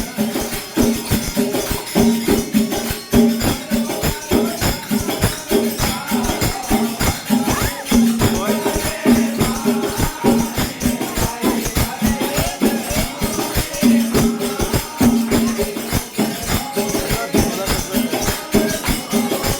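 Rajasthani folk music: fast, even percussion with a jingling rattle over a steady held drone tone, with a wavering melody line in the middle stretch and no clear singing.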